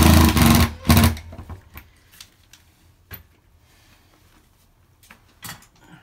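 Cordless drill-driver running at speed, driving a screw into a uPVC door frame to fix a new hinge. It stops about half a second in, then gives one more short burst about a second in. After that there are only a few faint clicks and light knocks as the hinge is handled.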